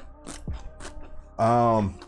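Eating sounds: a few soft clicks of a fork and mouth sounds, then a short low hummed "mmm" from a voice about a second and a half in.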